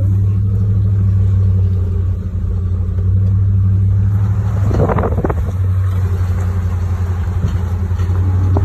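Steady engine drone and road noise heard from inside a moving vehicle's cab, with a brief higher-pitched sound about five seconds in.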